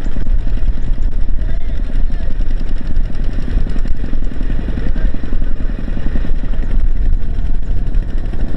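Heavy diesel engine of a bulldozer running steadily with a loud, rapid low chugging.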